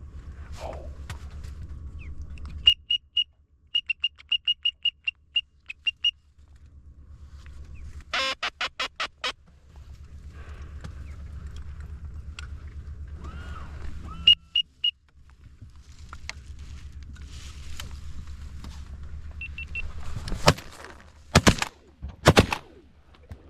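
Duck calling: a quick run of high whistled peeps, then a short string of quacks, with more scattered peeps later. Near the end, three shotgun shots in quick succession, a volley at incoming green-winged teal.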